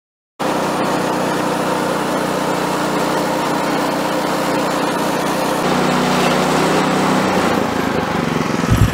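Small gasoline engine of a Woodland Mills portable band sawmill running steadily. Its engine note shifts about six seconds in.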